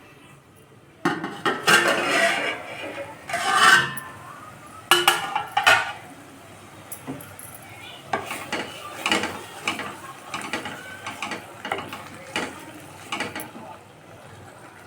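Metal spoon scraping and knocking against a cooking pan while stirring food: a few long, loud scrapes in the first six seconds, then a run of shorter, quicker strokes.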